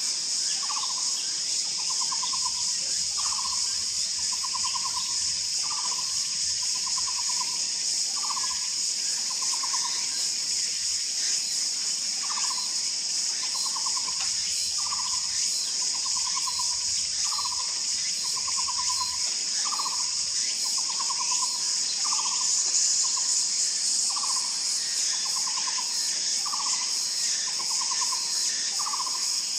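Taiwan barbet calling steadily: a short rising note followed by a quick trilled note, repeated about every 1.3 seconds. Under it runs a steady high-pitched insect drone, louder than the bird.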